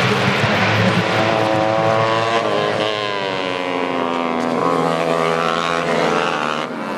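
Tuned 150cc four-stroke underbone racing motorcycles running hard, several engines at once, their pitch rising and falling with throttle and gear changes.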